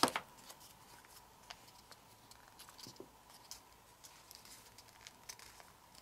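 Origami paper being folded and creased by hand: faint, scattered rustles and soft taps.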